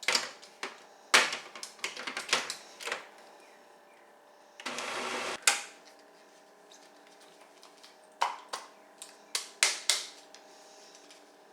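Kitchen clatter: a run of sharp knocks and clicks from utensils and containers being handled, with about a second of rushing noise in the middle and more clicks near the end.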